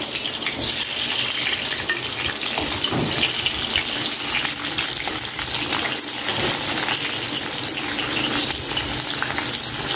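Whole peeled shallots frying in hot oil in a wok: a steady sizzle with fine crackle.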